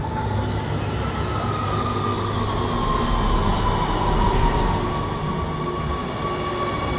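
Subway train arriving in an underground station: a steady low rumble under a whine that falls in pitch over the first few seconds, with steady high ringing tones above. It grows louder to a peak about four seconds in.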